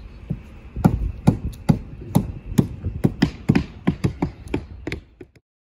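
Footsteps thudding on OSB roof decking over a hollow mobile home roof, about two to three steps a second, then cut off suddenly near the end.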